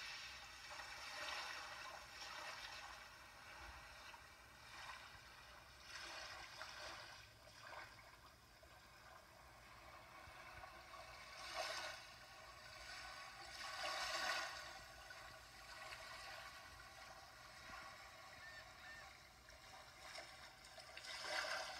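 Sea waves washing in, a rushing hiss that swells and falls away every few seconds.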